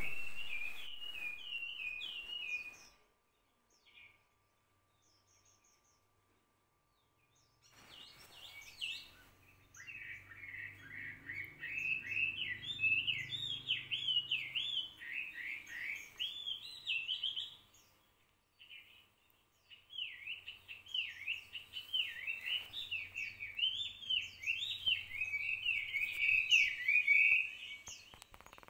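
Small birds chirping in quick, repeated rising-and-falling notes, in bouts, with a pause of a few seconds about three seconds in.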